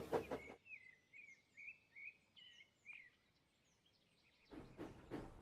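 Faint bird chirps, a quick run of short twittering notes for about two and a half seconds, then near silence. A fast rhythmic pulsing fades out at the start and returns about four and a half seconds in.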